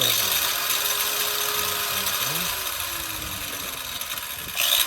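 Cheap angle grinder running and grinding on steel fasteners, a steady hissing grind with a faint motor whine that sags in pitch as it loads down, and a brief louder burst of grinding near the end.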